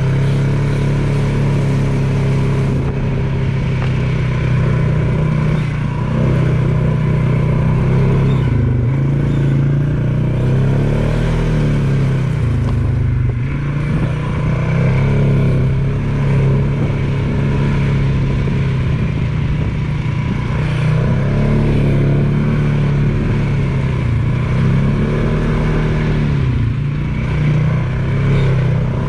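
ATV engine running steadily while riding along a trail, its pitch rising and falling with the throttle several times.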